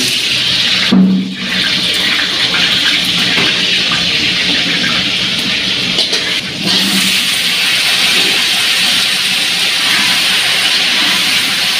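Halved potatoes frying in hot oil in an aluminium kadai: a steady, loud sizzle.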